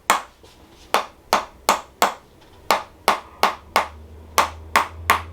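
Rapid sharp tapping clicks, about three a second, from a chiropractor's tapping treatment on the patient's hip, meant to loosen up the short right side.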